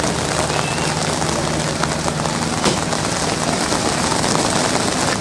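An aircraft flying over, its engines giving a steady low sound under a wash of noise.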